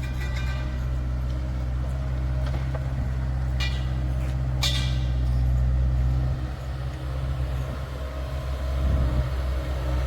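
Bobcat S450 skid-steer loader's diesel engine running steadily, with two short sharp noises about four and five seconds in. The engine sound turns uneven over the last few seconds.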